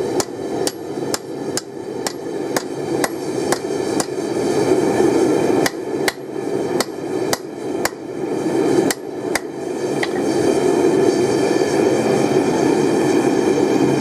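Hand hammer striking hot railroad-spike steel on an anvil, about two blows a second, stopping about nine and a half seconds in. Under the blows runs the steady roar of a propane forge burner.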